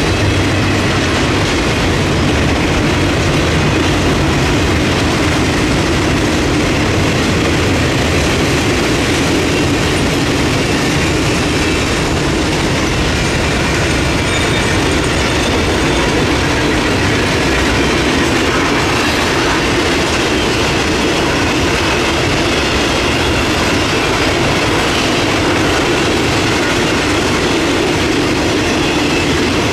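Cars of a Norfolk Southern camp train rolling steadily past: a continuous rumble of wheels clattering over the rails, with a faint high wheel squeal here and there.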